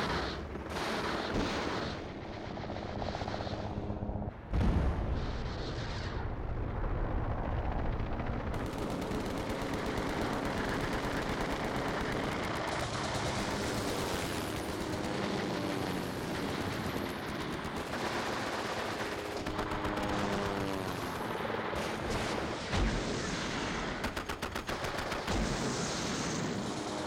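Sustained machine-gun fire from attacking helicopters, with explosions; the heaviest blast comes about four and a half seconds in. Near the end there is a fast run of evenly spaced shots.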